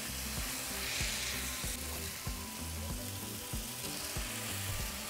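Marinated chicken breasts sizzling steadily in a hot grill pan greased with avocado oil, as they are set down and moved with a fork.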